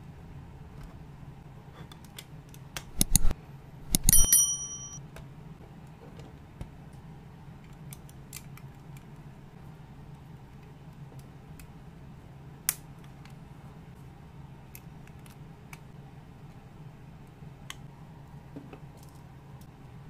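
Plastic building bricks being handled and pressed together by hand, with scattered small clicks and two louder clattering knocks about three and four seconds in, the second followed by a brief ring.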